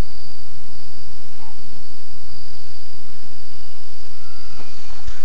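Steady high-pitched chorus of crickets, with a single sharp knock near the end.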